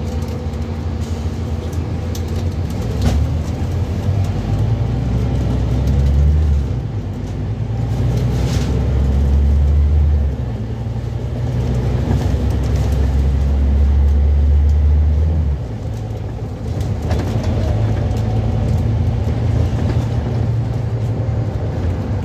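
Scania N230UB double-decker bus's five-cylinder diesel engine heard from inside the passenger saloon while the bus is under way. It makes a low drone that swells and then drops back sharply three times before settling to a steadier run.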